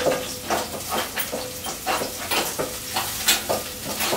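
Wooden spoon stirring and scraping an aluminium pot of frying tomatoes on a gas burner: irregular scrapes and knocks about three times a second over a steady sizzle, with a faint steady hum underneath.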